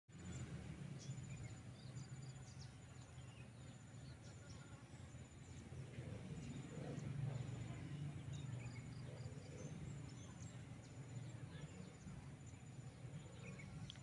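Insects in a grassy field: a bee buzzing low around a flower, loudest about seven seconds in, over short high trills of crickets and a few faint bird chirps.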